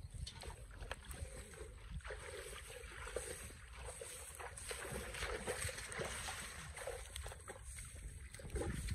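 Footsteps sloshing through shallow, muddy canal water, an irregular run of small splashes and squelches over a steady low rumble.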